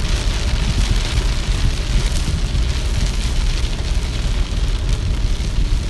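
Rain hitting a car's windshield and body, heard from inside the cabin, over the steady low rumble of the car driving on a wet road.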